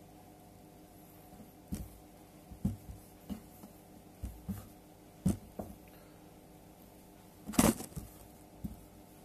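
Handling noise as hands unfold a thin stretchy fabric scarf on a table: scattered soft knocks and rustles, the loudest about seven and a half seconds in, over a faint steady hum.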